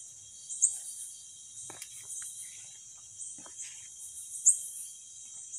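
Night insect chorus of crickets, a continuous high pulsing trill, with two sharp loud chirps close by, about half a second in and again near the end.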